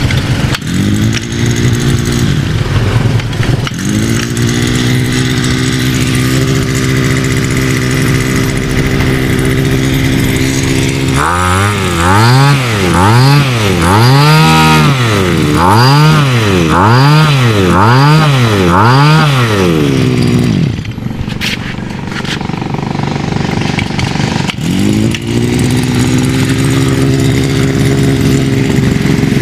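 Maruyama Big M BC23A pole pruner's small 23cc two-stroke engine idling steadily, then revved up and down about nine times in quick succession before settling back to idle.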